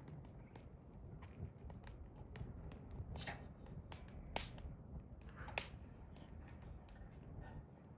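Hardwood fire crackling in a fire pit: scattered sharp pops and snaps, with two louder snaps around the middle.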